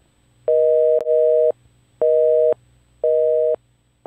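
Telephone busy signal: two steady tones sounding together, beeping on and off about once a second, with a sharp click about a second in.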